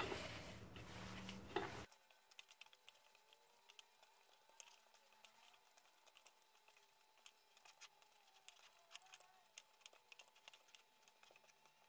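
Near silence with faint, irregular small ticks and crackles from hands pressing and gathering crumbly semolina dough in a wooden bowl.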